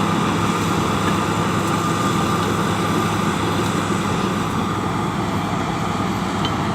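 Caterpillar D6H LGP bulldozer's diesel engine running steadily, with a thin high whine over the low engine note.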